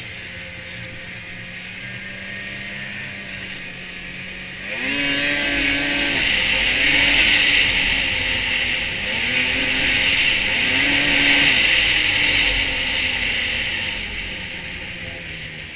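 A 2006 Polaris RMK 600HO snowmobile's two-stroke twin engine running at a steady low throttle. About five seconds in the engine is given throttle: it revs up and falls back about four times in a row with a loud high hiss over it, then eases off gradually near the end.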